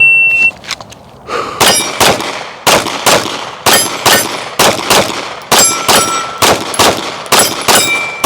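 Shot-timer start beep, then about a second later a rapid string of roughly fifteen shots from a Glock 45 9mm pistol, about two a second. Some shots are followed by the ringing of a steel target being hit.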